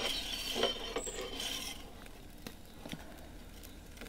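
Metal pizza turning peel scraping across the stone floor of an Ooni Koda 12 pizza oven as the pizza is turned. There are two short rasping strokes in the first two seconds, then a few light ticks.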